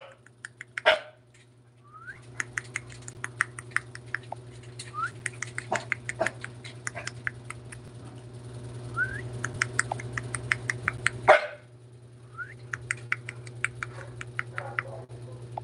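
Siberian huskies, an adult and puppies, in a cage: two loud barks, about a second in and again near eleven seconds, with short rising whines and a fast run of ticks in between. A steady low hum runs underneath.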